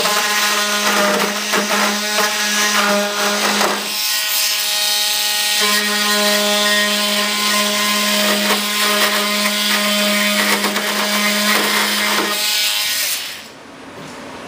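A small handheld power tool running with a steady motor hum and a rough grinding sound as it works the material. It stops briefly about four seconds in, starts again, and stops near the end.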